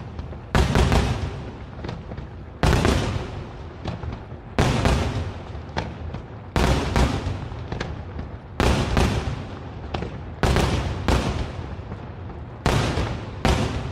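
Daytime aerial fireworks shells bursting in loud bangs about every two seconds, most followed by a second, smaller bang about half a second later, each trailing off in a rolling echo.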